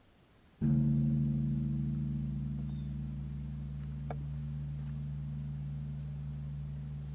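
Large temple bell struck once, about half a second in, then ringing on with a deep, slowly fading hum.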